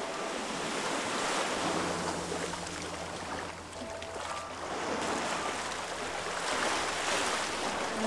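Sea surf washing onto a beach, the noise swelling and falling back in slow surges.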